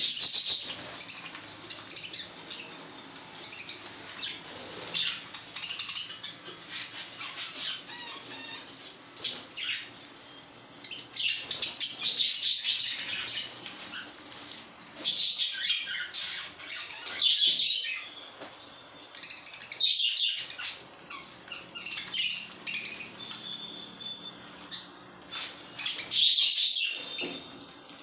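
A flock of budgerigars chattering and chirping, with flurries of wing flapping now and then.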